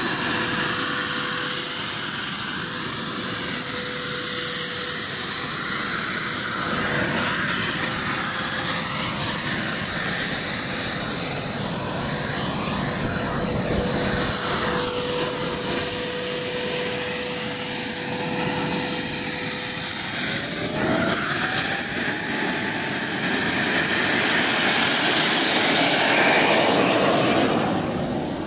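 Jet-Italia Speed 12 model gas turbine running with a steady high whine, then spooling up with a rising whine about twenty seconds in. It fades near the end as the jet moves away.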